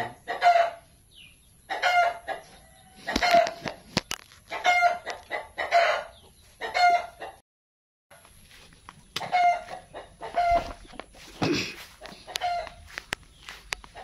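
Chickens clucking, short calls repeated about once a second. The sound cuts out completely for a moment a little past halfway.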